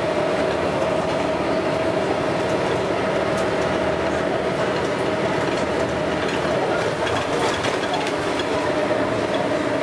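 Scania L113CRL single-deck bus heard from on board while under way: the engine runs steadily, with the rattling of the body and fittings that enthusiasts call thrash.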